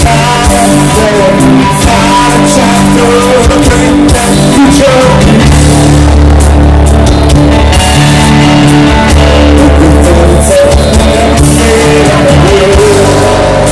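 Live rock band playing loudly through a PA: electric guitars, keyboard and drum kit.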